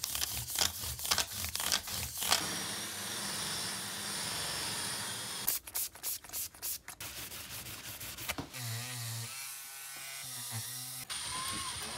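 Hand rubbing and sanding strokes on a guitar's bone frets and fretboard, in quick runs at the start and again around the middle, with stretches of steady buzzing between them from a small electric tool.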